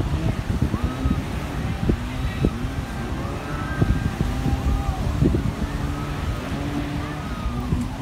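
Sea wind buffeting the phone's microphone in gusts, over waves breaking on the beach, with faint voices of people in the background.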